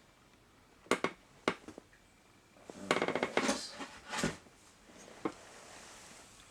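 Small metal hand tools clinking, rattling and knocking on a workbench as they are picked up and handled: a few single clicks, then a short burst of rapid rattling about three seconds in, then two more knocks.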